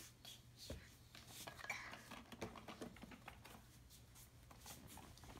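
Faint rustling and small irregular clicks of a toy box and gift bag being handled.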